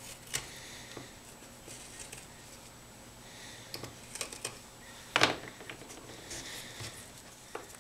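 Hobby knife scraping and clicking lightly against a small brass tube with a paper pattern on it, along with fingers handling the tube on a cutting mat. There is one sharp click about five seconds in.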